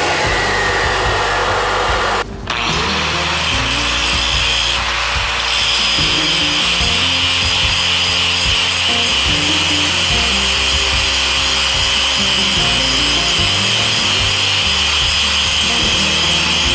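Power tool grinding steel, a steady high-pitched grind that drops out briefly about two seconds in, over background music.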